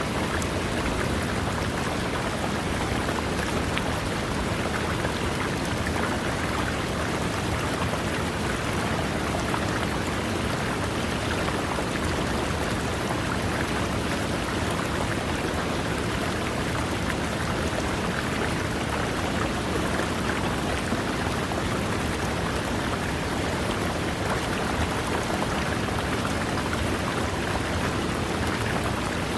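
A river running over rocks: a steady, even rush of water that does not change.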